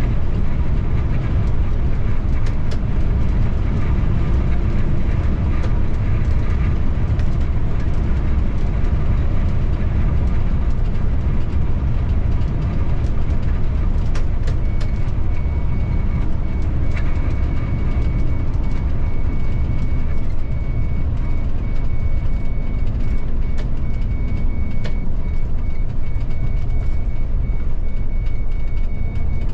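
Bus in motion heard from the driver's cab: a steady low engine and road rumble. A faint high-pitched tone joins about halfway through.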